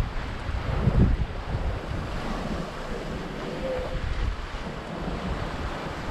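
Wind buffeting the microphone over the steady rush of water along a sailing yacht's hull and breaking seas, with a heavier gust about a second in.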